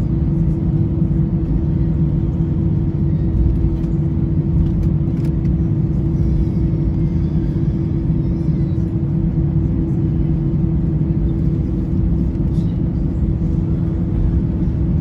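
Inside the cabin of an easyJet Airbus A320-family airliner taxiing after landing: a steady low rumble from the jet engines at taxi idle, with a constant hum.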